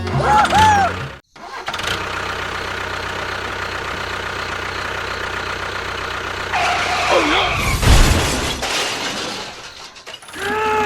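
A small engine or motor running steadily with a constant hum. It gets louder for a couple of seconds near the end, with some gliding tones over it.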